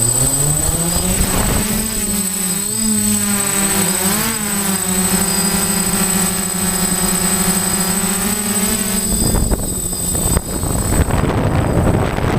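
DJI F550 hexacopter's six electric motors and propellers spinning up, rising in pitch together over the first second or so. They then hold a steady multi-tone hum, the pitches drifting and crossing as the motors adjust. About nine seconds in, the tones give way to a rushing noise like wind on the microphone, with a faint constant high whine throughout.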